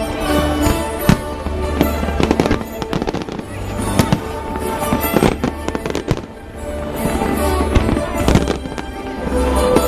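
Fireworks going off in quick succession, many sharp bangs and crackles throughout, with music playing underneath.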